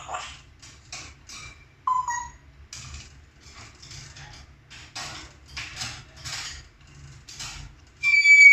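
Pet bird giving a run of short harsh rasping calls, with a brief whistle about two seconds in and a loud clear whistled call near the end.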